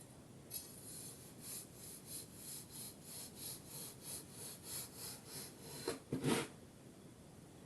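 Kinetic sand being scraped with a tool in quick, even strokes, about three a second, ending with one louder, longer scrape about six seconds in.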